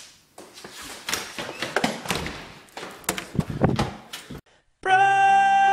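A jumble of rustling and sharp knocks and thumps, irregular and fairly loud, stopping about four seconds in. After a short gap, music starts near the end on a long held note.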